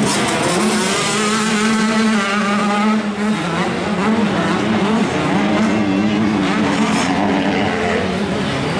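Motocross bike engines revving on the track, the pitch rising and falling as the throttle opens and closes.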